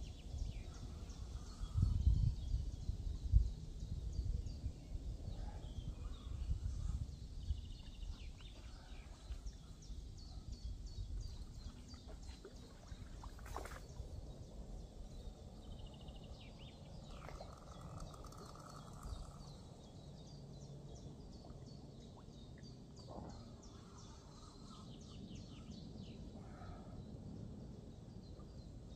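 Woodland birds chirping and singing throughout. Low thumps and rumbling about two to four seconds in, and a single sharp click about halfway through.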